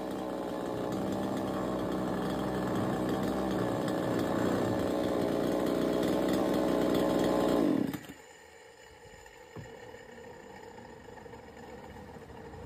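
Flymax 62cc two-stroke chainsaw engine running steadily at idle, then shut off about eight seconds in, its pitch dropping quickly as it stops.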